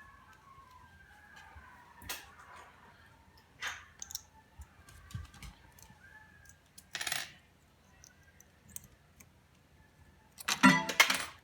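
Metal pachislot medals dropped into a pachislot machine's medal slot, clinking singly a few times, then a fast, loud run of clatter near the end as several go in in quick succession.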